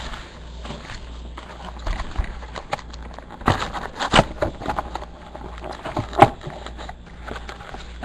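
Handling of a cardboard box of trading card packs as it is opened and the packs are taken out: rustling with scattered sharp knocks and clicks, the loudest about six seconds in.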